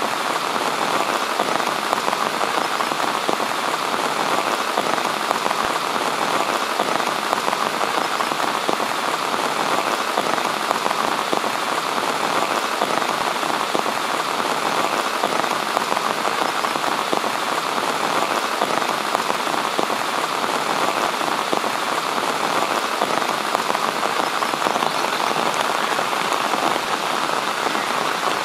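Steady rain falling, an even wash of many small drops that keeps up without change.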